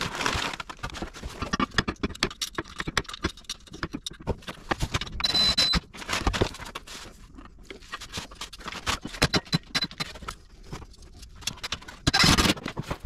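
Steel plow mount bracket, bolts and washers being handled and fitted under an ATV's skid plate: irregular metal clinks, knocks and scrapes, with a short squeak about five seconds in. Near the end comes a louder cluster of quick clicks as a socket wrench tightens the mounting bolts.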